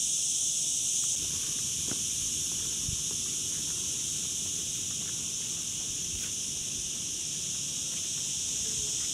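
Cicadas buzzing in a continuous chorus, a steady high-pitched drone that does not let up. A few faint knocks sound underneath about two and three seconds in.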